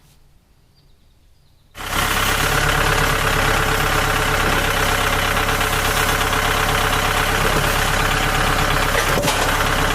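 Quiet for about two seconds, then a tractor engine comes in abruptly and runs steadily at idle.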